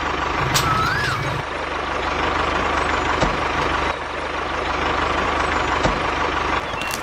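Small engine running steadily with a fast, even putter under a broad hiss, with a short whistle-like glide about a second in.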